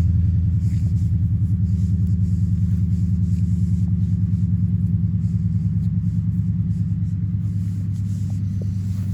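An engine running steadily nearby, a low throb with a fast, even pulse.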